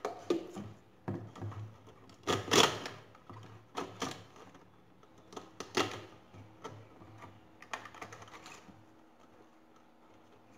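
Plastic bottle handled and turned on a table while a cord is pulled through its cut-out sides: scattered clicks and knocks of plastic. The loudest cluster comes about two and a half seconds in, and they thin out after about nine seconds.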